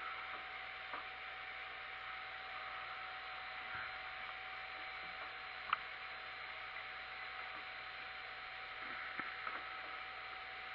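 Small metallic clicks and taps from hands on a milling set-up, a forming tool and brass gear blank on a dividing head, as the tool, which has been working loose, is checked. One tap about halfway through is sharper than the rest, over a faint steady hum.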